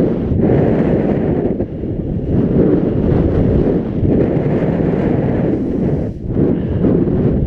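Wind buffeting a body-worn camera's microphone in a loud, continuous rumble as a skier descends fast through deep powder snow, dipping briefly twice.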